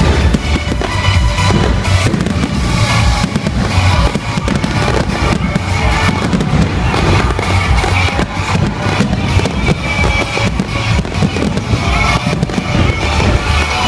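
Aerial fireworks display: a dense, continuous barrage of shell bangs with no pauses between them. Music plays alongside.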